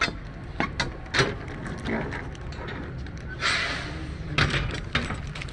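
Footsteps and sharp metal knocks and clanks at a semi-trailer's rear swing doors, with a short hiss about three and a half seconds in, over a low steady hum.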